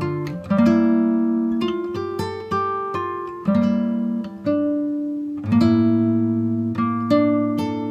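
Background music: a plucked-string melody over chords, each note starting sharply and ringing away, a new note or chord every half second or so.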